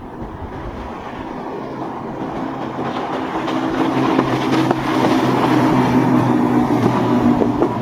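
Boat engines droning with the rush of the hull through water, growing steadily louder as the boat approaches.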